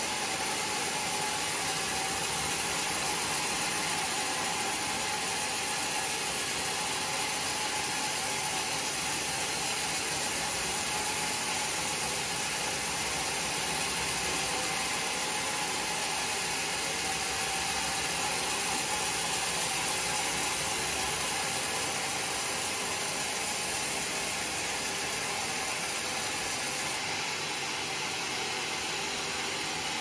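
Band sawmill running, its blade cutting through a large log: a steady, unbroken mechanical noise with a faint constant tone.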